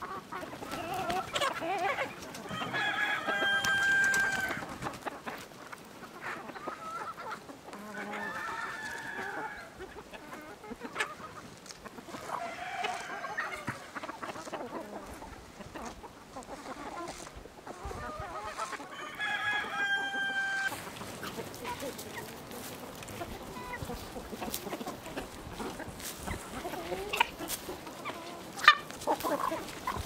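Domestic chickens clucking on and off, with a rooster crowing twice, about three seconds in and again around twenty seconds. A few sharp clicks come near the end.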